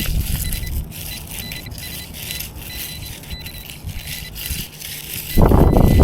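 Sand and shingle rattling as they are shaken in a beach-detecting sieve scoop to free the recovered target, over faint, broken metal-detector tones. A loud low rumble comes in about five seconds in.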